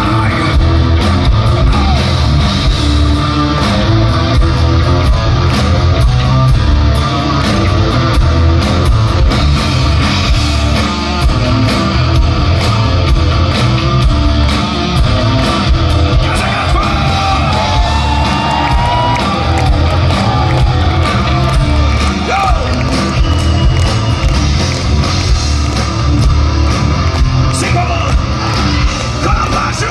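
Heavy metal band playing live through a PA: distorted electric guitars, drums and singing, heard from within the audience.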